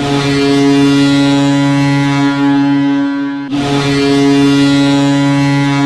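Hockey goal horn sounding two long, steady blasts, the second starting about three and a half seconds in.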